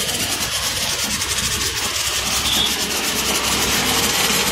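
High-pressure washer jet spraying water onto a foam-covered car: a steady hiss over a low hum.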